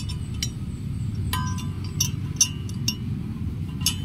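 Galvanised steel satellite-dish mount brackets clinking against each other as they are fitted together by hand: about seven short, sharp metallic clinks with a brief ring, over a steady low background rumble.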